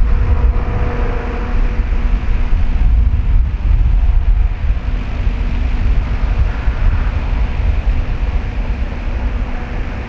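2TE116 twin-section diesel locomotive's 16-cylinder 5D49 diesel engines working hard under load as they haul a heavy freight train up a grade, heard from far off: a deep rumble with a faint steady turbocharger whistle over it.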